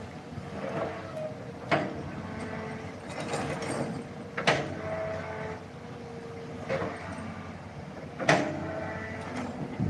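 Excavator working: its engine and hydraulics run steadily, with about four sharp metallic clanks spaced a couple of seconds apart.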